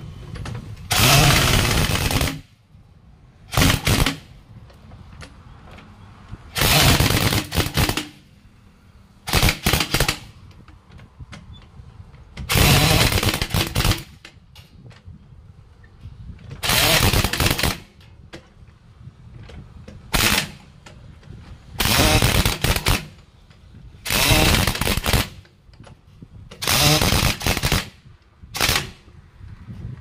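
Trolley-mounted pneumatic impact wrench on a truck's wheel nuts, hammering in about eleven short bursts of half a second to a second and a half, every two to three seconds.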